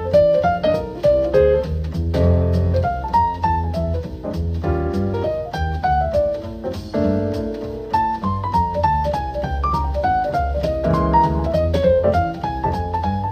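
Instrumental jazz-style music with piano, a bass line and a steady drum beat, played back through a Bugani speaker for a sound test.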